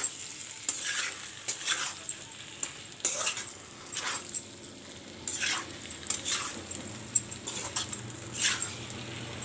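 Flat metal spatula scraping and stirring prawns and potato pieces around an iron kadai in repeated strokes, over a light sizzle of masala frying in oil.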